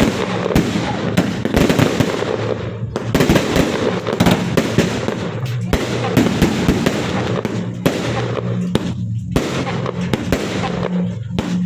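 Fireworks going off: a dense, irregular run of sharp bangs and crackles.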